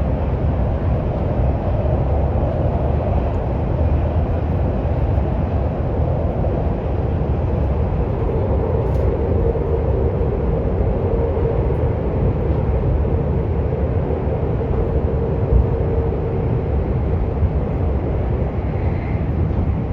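Daxing Airport Express train running along the line: a steady low rumble of wheels and rails. A faint steady hum comes in about eight seconds in and fades out several seconds later.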